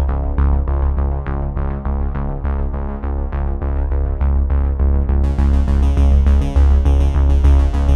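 Electronic background music with synthesizer and a heavy steady bass, played on an even beat; about five seconds in a bright high layer comes in over it.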